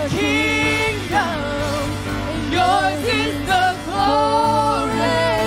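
Live contemporary worship music: lead vocals and a choir singing held, sustained lines over a band with keyboard and electric guitar.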